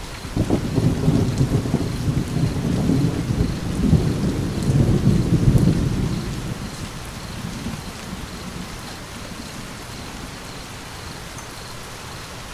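Thunder rumbling over steady rain. The rumble breaks in about half a second in, rolls on for several seconds and dies away, leaving the rain's hiss on its own.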